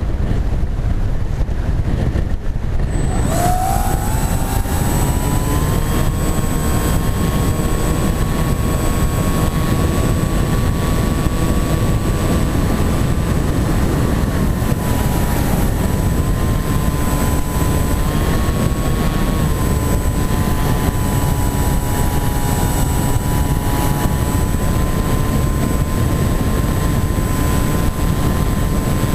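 Wind rushing over the onboard camera of a flying-wing model plane in flight. About three seconds in, the plane's electric motor and propeller come in with a steady whine that rises briefly, then holds with slight wavers in pitch.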